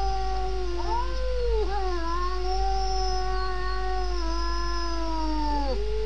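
Domestic cat yowling in a string of long, drawn-out calls, each held one to two seconds at a steady pitch, running on almost without pause.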